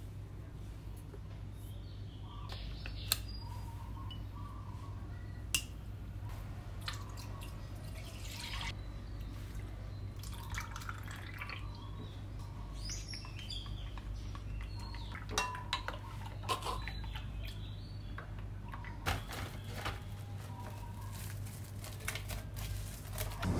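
Milk and yogurt pouring and dripping into a glass bowl, with light clicks and knocks of the cup against the glass. Near the end, plastic cling wrap crinkles as it is stretched over the bowl. A steady low hum runs underneath.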